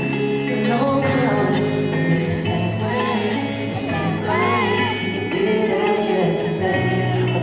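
Live pop/R&B song played through a concert PA, with a singing voice carrying the melody in places.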